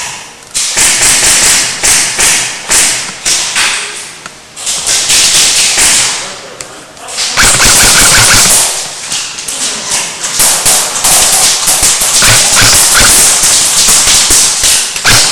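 Airsoft rifle firing in quick runs of sharp snapping shots, loud and close at the gun-mounted microphone, with rustling handling noise between the runs.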